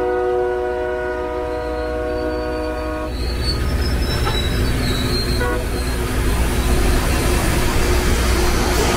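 Air horn of a Loram RG-401 rail grinder train sounding one multi-note chord for about three seconds, then the train rumbling past, growing louder near the end as the grinding units working the rail come by.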